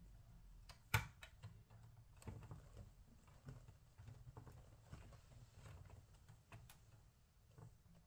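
Faint, scattered clicks and taps of small laptop parts and a screwdriver being handled, with one sharper click about a second in, over a low hum.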